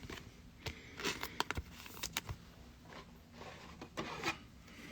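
Trading cards being handled and flipped through: a scatter of light clicks, taps and scrapes as the cards slide against one another.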